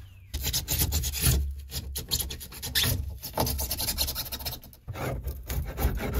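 Hand scraper blade scraping spray-foam insulation and sound-deadening mat off a van's inner wall panel, in quick repeated rasping strokes with short pauses.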